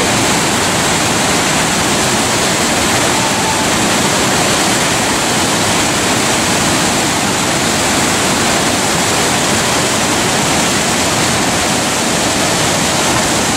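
Hogsback Falls on the Rideau River rushing in high water, a loud, steady wash of white water pouring over the ledges.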